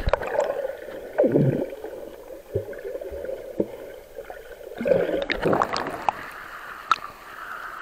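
Water splashing and gurgling around a camera being dipped in and out of the water, in uneven surges with a few sharp knocks.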